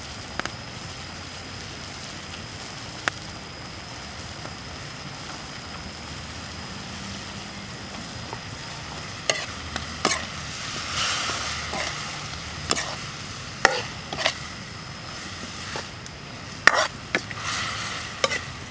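Food sizzling in a steel wok over a wood fire. From about halfway through, a metal ladle clinks and scrapes against the wok in a string of sharp knocks as vegetables are tossed in and stirred.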